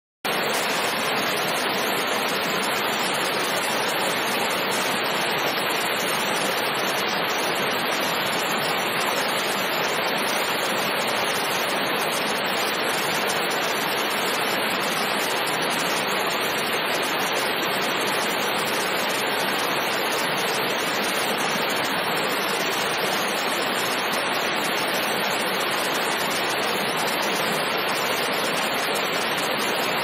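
Small stepped waterfall cascading over rock ledges into a pool: a steady, unbroken rush of falling water.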